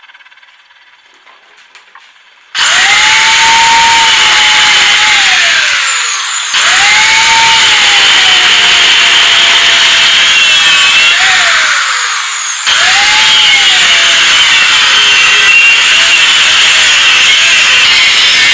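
A power tool's motor starts about two and a half seconds in and runs loudly in three long runs with short breaks between them; each time its pitch jumps up as it spins and then slowly sinks as the tool works.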